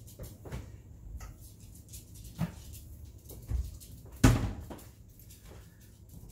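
Scattered knocks and clunks of things being handled in a kitchen, about half a dozen, the loudest a sharp knock about four seconds in.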